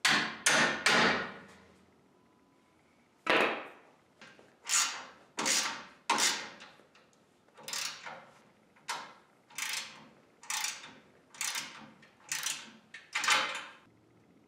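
Three quick hammer blows on the jeep's steel frame, then a socket ratchet wrench clicking in about a dozen strokes, one every second or less, as a bolt through the frame is tightened.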